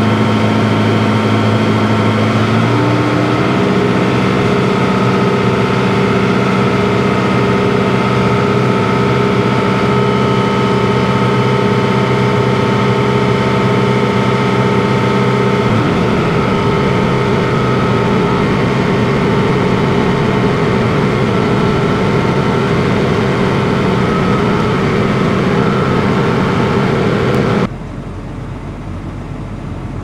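Tractor engine running hard and steadily, driving a grain bag extractor that is pulling barley out of a silo bag into a chaser bin. The engine note steps up a few seconds in and shifts again about halfway. Near the end it gives way to a quieter, steady hum.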